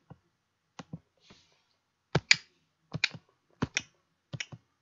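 Computer keyboard keys clicking slowly, in sharp close pairs: one pair just before a second in, then four more at a steady pace of about one every three-quarters of a second.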